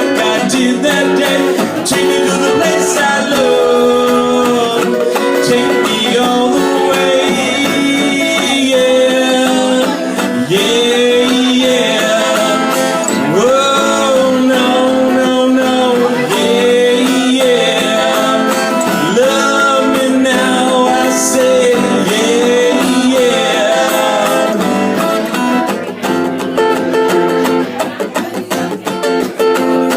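Music: a guitar playing with a voice singing over it, the sung notes sliding up and down in places.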